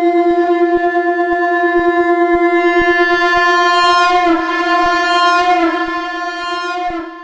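Shankh (conch shell) blown in one long sustained note on F, held steady with a slight waver in pitch about four seconds in, then dropping away near the end.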